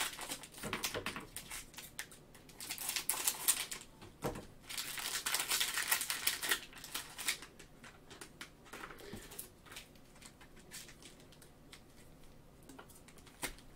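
Plastic trading-card pack wrappers crinkling and being torn open in gloved hands. The crackling is densest about three to seven seconds in, then thins to light rustles and small clicks.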